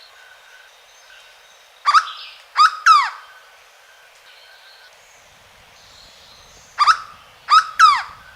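Hooded berryeater (corocoxó) singing: two phrases about five seconds apart, each of three loud, ringing notes, the last two sliding down in pitch.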